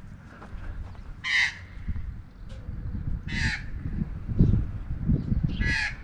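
Australian magpie giving three harsh, scratchy calls about two seconds apart, the aggressive calling of a magpie defending its territory against the cyclist. Low wind rumble on the microphone runs under the calls.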